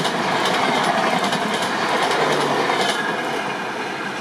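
LHB passenger coaches of the Shatabdi Express passing at speed, their wheels clattering over rail joints in a fast series of clicks. About three seconds in the last coach goes by, and the rush eases off as the train moves away.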